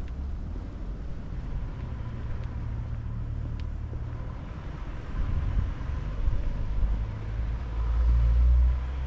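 A car passing on the street, a low engine and tyre rumble that builds from about halfway through and is loudest near the end, with a few faint clicks.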